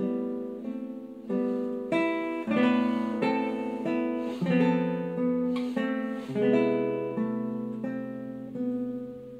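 Solo nylon-string classical guitar played fingerstyle. Slow chords and melody notes are plucked about every half second to a second, and each is left to ring and die away.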